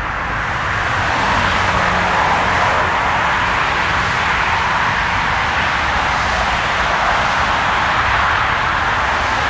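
Steady jet engine noise from an Airbus A320's CFM56 turbofans as the airliner rolls out along the runway after landing. The noise grows a little louder about a second in.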